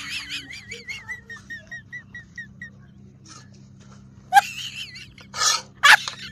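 Edited-in comedy sound effects: a run of short, high, warbling chirps about five a second, fading away like an echo, then three loud swishing noises near the end.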